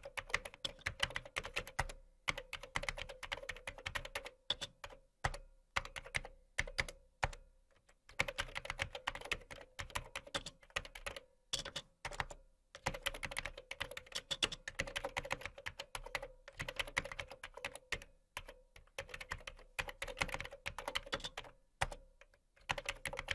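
Computer keyboard being typed on in fast, uneven runs of key clicks with short pauses between bursts.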